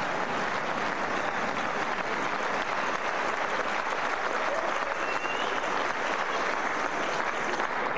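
Hall crowd applauding steadily after a won rally in a table tennis match, with a short high whistle about five seconds in.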